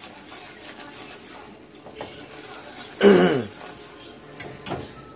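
Wire whisk stirring a cream sauce in a stainless skillet, a soft steady swishing. About three seconds in, a man loudly clears his throat, and near the end there are two sharp taps of the whisk on the pan.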